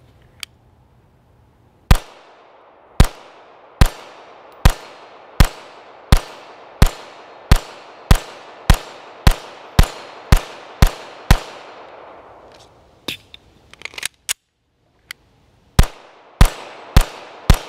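Canik TP9 DA 9mm pistol fired in a string of about fifteen shots that come closer together, each followed by a short echo. After a pause with a few small clicks, a second string of shots begins near the end.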